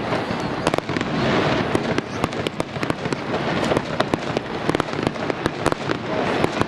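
Aerial firework shells bursting one after another: a rapid, irregular string of sharp bangs and crackles over a continuous din of reports.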